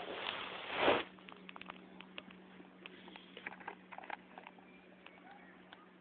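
Handling noise from a plastic pocket water-quality meter and its carrying case. It starts with a rubbing rush about a second long, then scattered light clicks and taps over a faint steady hum.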